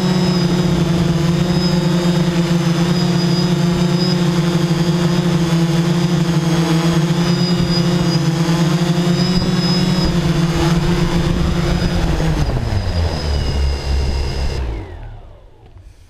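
A small vehicle's motor running at a steady pitch. About twelve seconds in it slows with a falling pitch, then cuts out near the end as the vehicle comes to a stop.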